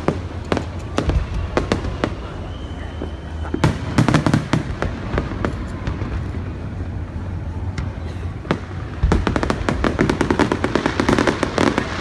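Fireworks display: a rapid series of bangs and crackling shell bursts, densest about four seconds in and again from about nine seconds on.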